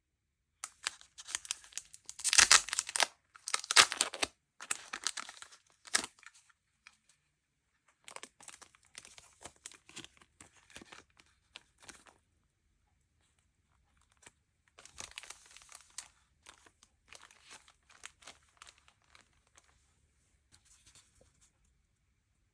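Merchandise packaging being torn open and crinkled by hand. There are a few loud rips in the first six seconds, then two stretches of softer rustling and crinkling.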